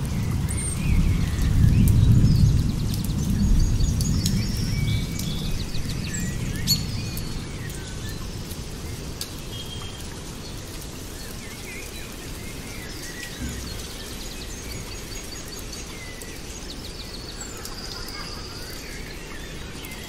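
Small birds chirping and trilling again and again over a steady hiss of rain, with a low rumble during the first several seconds that dies away.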